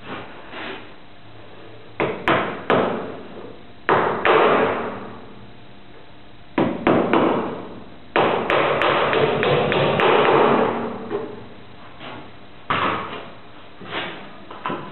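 A series of sharp wooden and metal knocks and clunks from hand adjustment of a spindle moulder's fence, with a dense run of them about two thirds of the way in.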